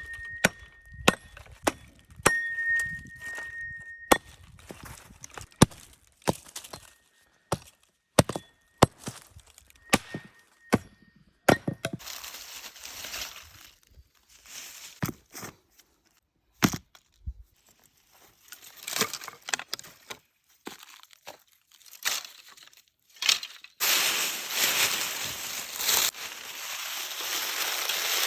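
Many sharp knocks and cracks, with a thin high whistle coming and going. About twelve seconds in, a steady hiss comes up; it grows much louder about four seconds before the end, with a few more knocks over it.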